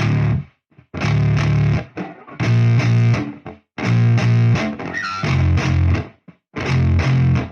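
Background music: a heavily distorted electric guitar riff with bass, played in stop-start chord blocks about a second long, each cut off abruptly before the next.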